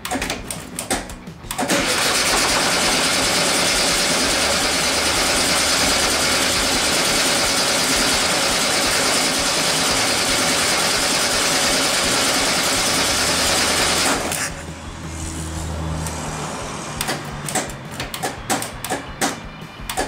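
1973 VW Beetle's air-cooled flat-four engine running loud and steady for about twelve seconds, then dropping suddenly to a low hum. Scattered clicks come before it starts and again near the end.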